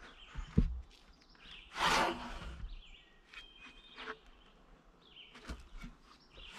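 Quiet woodland ambience with a few short bird chirps. A low thud comes under a second in and a brief rush of noise about two seconds in.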